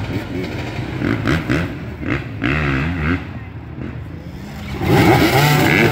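Several dirt bike engines idling and revving together, their pitches rising and falling, with the revving getting much louder about five seconds in.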